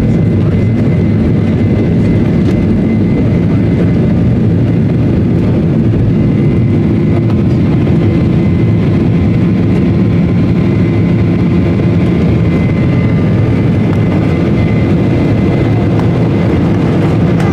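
Cabin noise of a Boeing 737-900ER at takeoff power: the CFM56-7B engines and runway rumble run loud and steady through the end of the takeoff roll and into the climb. A thin steady whine sits above the rumble.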